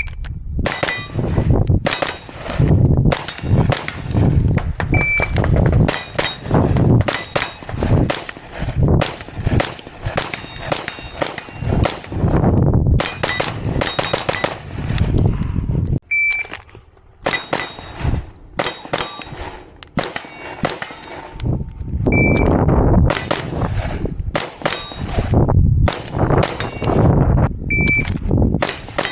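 A shot timer beeps several times, and after each beep an AR-15 rifle fires a quick string of shots with steel targets ringing from the hits. These are repeated timed draws from the ready position.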